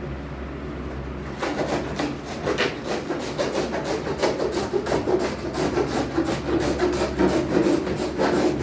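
Packaging on a new refrigerator being cut and pulled away: irregular rubbing and scraping that starts about a second and a half in.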